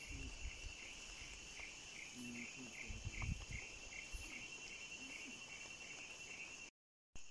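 Night forest insect chorus: a steady high chirring, one voice pulsing about two or three times a second over a higher continuous hiss-like trill. A few low thumps come about three seconds in, and the sound drops out to dead silence briefly near the end.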